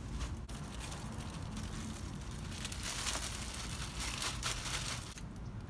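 Thin plastic food-service bag crinkling and rustling as handfuls of kale leaves are stuffed into it, loudest in the second half.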